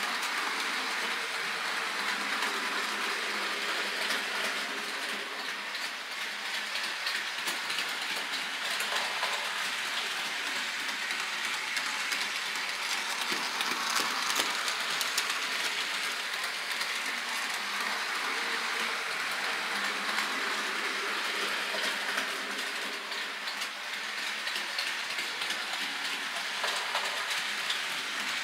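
A model train running around the layout: a steady clicking rattle of the small wheels over the track, loudest about halfway through as the diesel locomotive passes close.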